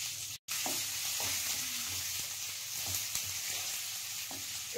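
Sliced onions sizzling in hot oil in a kadai with peanuts, stirred with a wooden spatula that knocks lightly against the pan now and then. The sound cuts out for an instant about half a second in.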